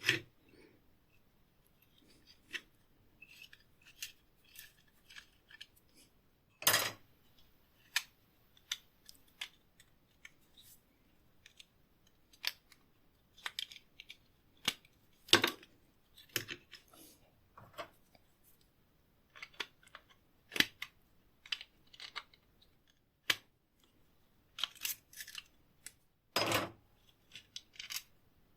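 Irregular metallic clicks and light taps from handling rusty hand-tool parts, with three louder knocks spread through.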